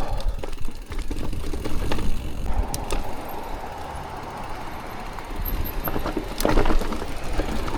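Mountain bike riding over a wet, rooty trail: tyres rumbling, the bike rattling, with sharp knocks as the wheels strike roots. A steady whine runs through the middle stretch.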